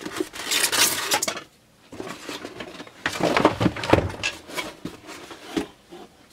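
Cardboard box and white foam packing being handled during unpacking: rustling and scraping in two spells, one in the first second or so and another around three to four seconds in, with light knocks as pieces are set on the workbench.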